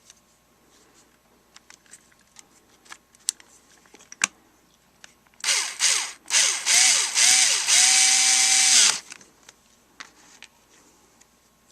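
Small cordless screwdriver motor run in several short pulses, each spinning up and dropping back, then held steady for about a second and a half before stopping. Before it come light clicks of small plastic parts being handled.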